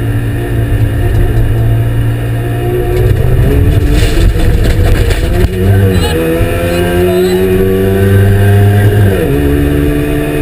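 Trabant 601's two-stroke two-cylinder engine running hard under load, its pitch climbing as it accelerates, with gear changes about halfway through and near the end. A burst of knocks and rattling comes about four seconds in.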